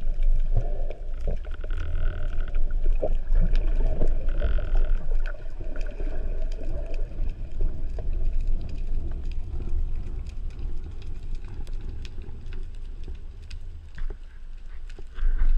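Underwater sound picked up by a camera in its waterproof housing during a spearfishing dive: a steady low rumble of moving water with many scattered sharp clicks, and two short higher hums in the first five seconds.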